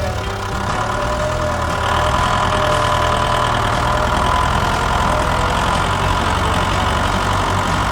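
A steady idling engine sound, with a rapid low pulsing and a thin steady whine above it.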